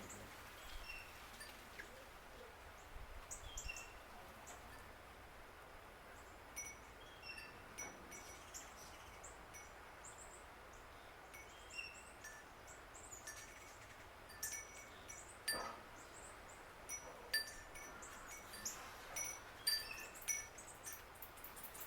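Wind chimes tinkling irregularly, short ringing notes at a few fixed pitches, growing more frequent in the second half, over a faint outdoor hiss.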